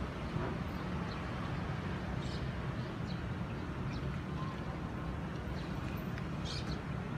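Steady low outdoor background rumble, with a few faint, short high chirps here and there.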